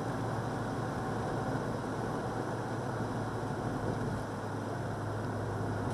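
Steady driving noise heard inside a moving car's cabin: the engine running and the tyres rolling on asphalt, an even low drone with no change in pitch.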